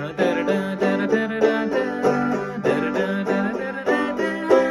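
Five-string banjo played clawhammer style, picking out the A part of an old-time tune in the key of G in a steady, even rhythm of plucked notes.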